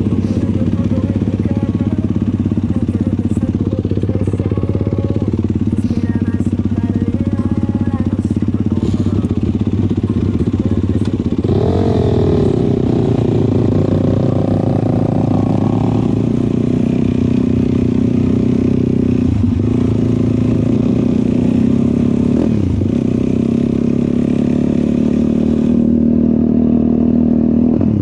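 ATV engine running steadily during a ride, revving up about twelve seconds in, with two brief drops in pitch later on.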